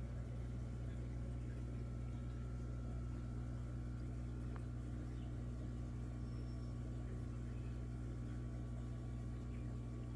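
Aquarium pump running with a steady low electrical hum.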